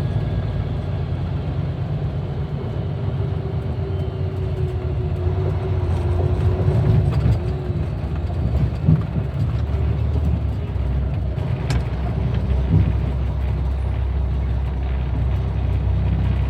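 Vehicle being driven: a steady low rumble of engine and road noise.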